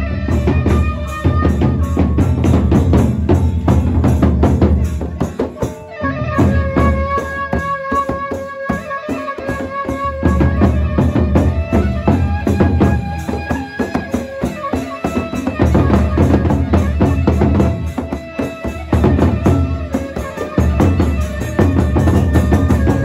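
Sasak gendang beleq ensemble playing: large barrel drums beaten in fast, dense strokes, with cymbals and ringing metallic gong tones over them. The big drums drop out for a moment every few seconds while the metallic tones carry on.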